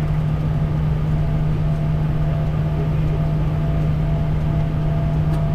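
Steady cockpit noise of a Bombardier Challenger 350 business jet in the climb: rushing airflow and turbofan drone under a constant low hum.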